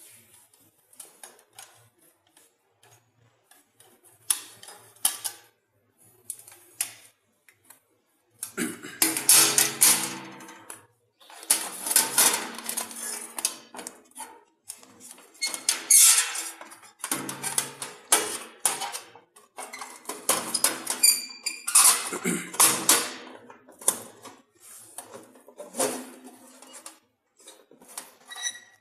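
CNC channel-letter bending machine working metal strip, with intermittent bursts of metallic clattering and clanking as it feeds, cuts and bends the strip.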